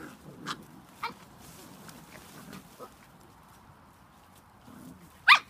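Seven-week-old Spanish Water Dog puppies yipping as they play, with a couple of short high yips in the first second, softer calls after, and one loud yelp just before the end.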